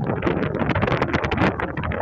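Wind buffeting the microphone: a loud, gusty rumble with irregular crackling.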